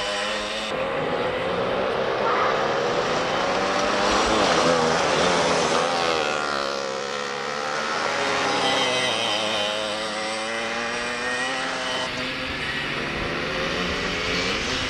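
Racing kart's two-stroke engine revving up and falling back again and again as it accelerates and slows through the turns, a high, buzzing note.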